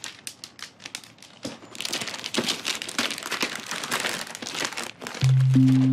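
Glossy gift-wrapping paper being torn and crinkled in quick, irregular rips as a present is unwrapped by hand. Near the end, music comes in with low held notes.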